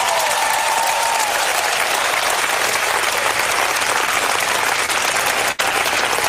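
Large crowd applauding steadily, with a momentary break in the sound about five and a half seconds in.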